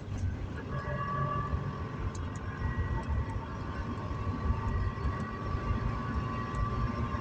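2003 Subaru Legacy with 230,000 miles, heard from inside the cabin while driving: a steady engine and road rumble with a ticky, sputtering note that the owner likens to an old Volkswagen and says comes on from about third gear up.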